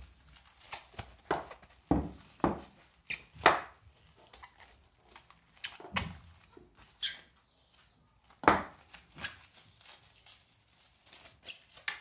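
Plastic cling film crinkling and snapping as it is stretched over a bowl and pressed around the rim, in irregular bursts; the loudest come about three and a half and eight and a half seconds in.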